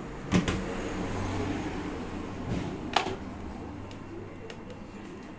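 An electric fan motor is switched on with a click and hums steadily for a few seconds, then fades as it winds down. A sharp click comes about three seconds in.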